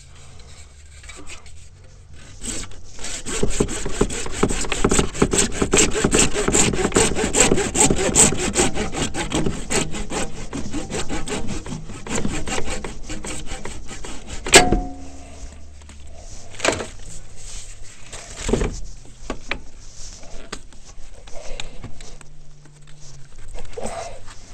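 Hand saw blade cutting through a black snorkel hose with quick, even back-and-forth strokes for about twelve seconds. A single sharp click follows, then scattered handling sounds as the cut hose is fitted.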